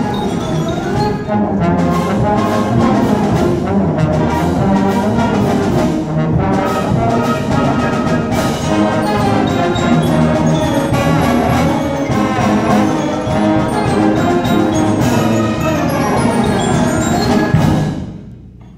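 Symphonic band playing a fast galop, with brass and percussion, ending on a loud final chord about a second before the end that dies away quickly.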